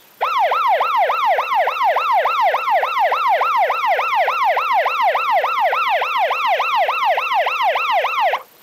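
Electronic police siren in a fast yelp, its pitch rising and falling about three and a half times a second. It is loud, starts abruptly and cuts off abruptly near the end.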